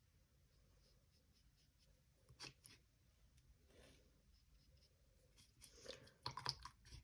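Near silence broken by a few faint scratches and light taps, once about two and a half seconds in and a short cluster near the end: a watercolour brush working on paper.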